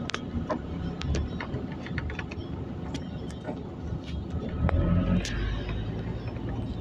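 A Scania OmniCity city bus heard from inside while driving: a low, steady engine rumble with frequent sharp clicks and rattles from the bus's body and fittings, a little louder about five seconds in.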